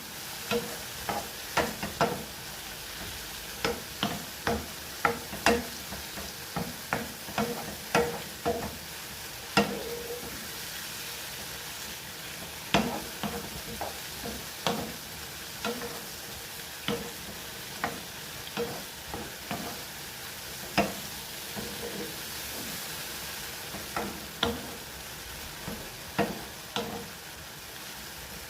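Mushrooms sizzling as they fry in oil in a pan, with a utensil knocking and scraping against the pan at irregular moments, about one or two strokes a second, as they are stirred.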